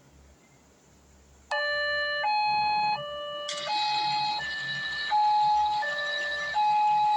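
Small toy train's electronic two-tone siren switching on about a second and a half in, alternating between a high and a low note about every three-quarters of a second. A hiss joins it about two seconds later.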